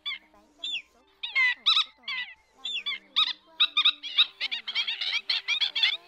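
Black-winged stilts calling: sharp, yapping calls in irregular bursts that grow faster and more crowded in the second half.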